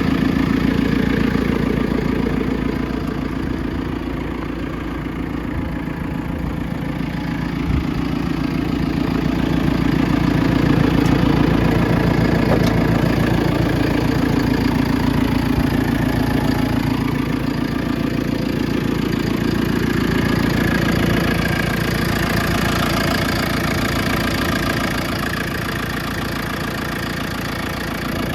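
JCB 3CX backhoe loader's 4.4-litre diesel engine idling steadily.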